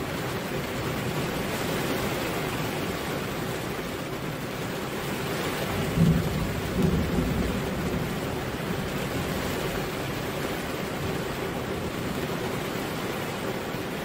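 Steady rain falling, with a short low rumble of thunder about halfway through that swells twice in quick succession.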